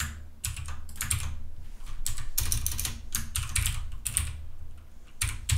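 Typing on a computer keyboard: a fast run of key clicks, with a short pause near the end.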